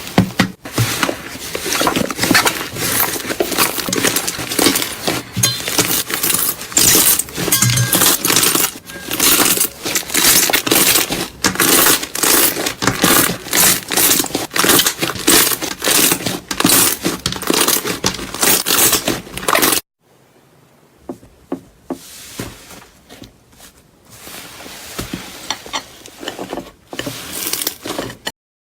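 Slime being squeezed and pressed by hand, making dense crackling and popping. About twenty seconds in it drops suddenly to a much quieter stretch of scattered pops, then cuts off just before the end.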